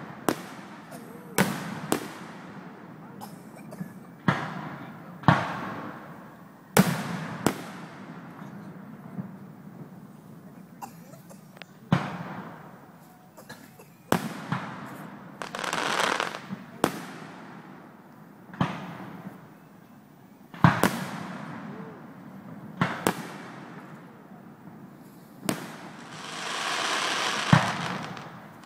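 Aerial firework shells bursting in a display: about fifteen sharp bangs, one every second or two, each followed by a rolling echo. Near the end a longer hiss swells and fades for about two seconds.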